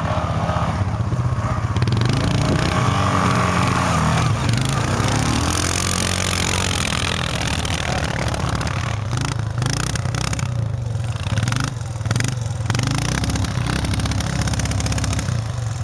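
Quad bike (ATV) engines running and revving through deep snow, one throwing up a spray of snow as its wheels spin.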